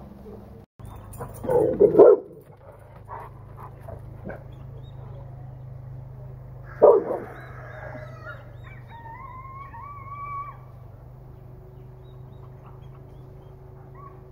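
A domestic animal calling: two loud, short calls about two seconds and seven seconds in, then a longer, higher, whining call around nine to ten seconds in.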